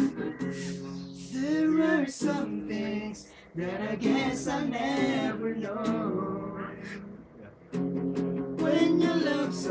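Guitar strummed, with several young men singing along together.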